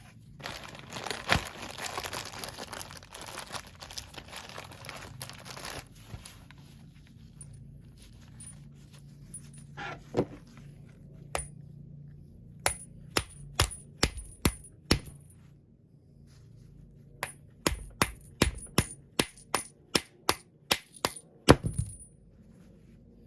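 Rustling handling of small parts, then two runs of sharp metallic taps and clinks with a light ring, about two to three a second, as parts for the dryer's drum rollers and bearings are worked on.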